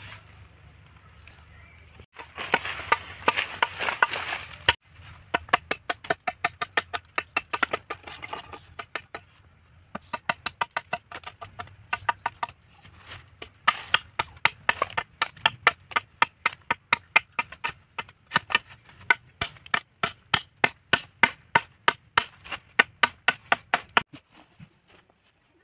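A machete chopping at the base of a green bamboo stalk in rapid, sharp blows, about three to four a second, in runs with short pauses, stopping near the end. The blows follow a few seconds of continuous scratchy noise.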